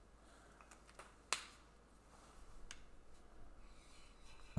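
A few faint clicks and taps of metal measuring tools being handled on a bench, the sharpest about a second and a quarter in.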